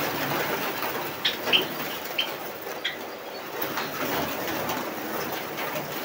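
A flock of Java sparrows flying about an aviary: short high chirps now and then over a steady rustle of fluttering wings.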